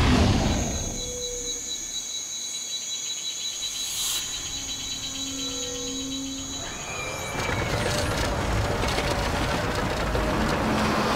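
Jungle ambience of insects trilling in steady high tones, with a few short low calls. About seven seconds in, a louder rushing rumble of a roller coaster train rolling on its track takes over.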